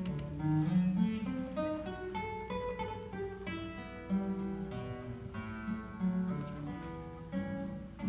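Solo classical guitar played fingerstyle: a plucked melody moving over ringing bass notes.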